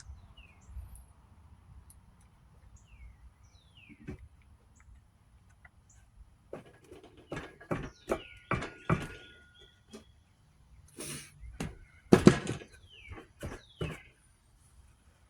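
A run of irregular knocks and clatters, hard items being handled and set down on a workbench, loudest about twelve seconds in, with short falling bird chirps in the background.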